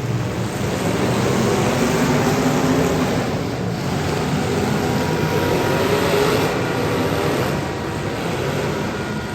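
Demolition derby car engines running and revving, the pitch wavering up and down, over a steady wash of noise.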